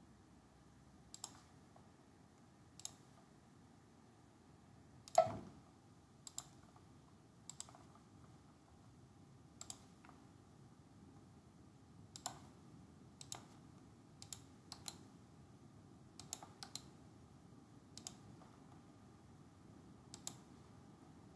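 Scattered clicks of a computer mouse, about a dozen at uneven intervals, one louder with a thud about five seconds in.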